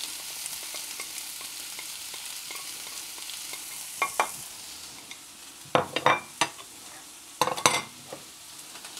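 Chopped onion and grated carrot sizzling in hot olive oil in a frying pan, a steady hiss. A few sharp clicks and scrapes come in the second half as the onion is pushed off a plate into the pan.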